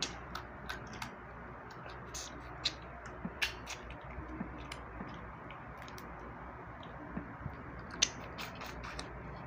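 Close-up eating sounds: scattered short clicks, smacks and crackles as crab and fish are picked apart by hand, sucked and chewed, over a low steady hum.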